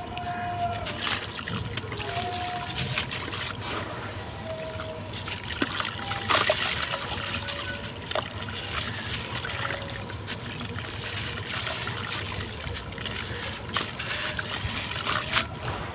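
Gritty sand-cement blocks breaking up in water: splashing and sloshing with many crisp crackles, the strongest about six seconds in and again near the end.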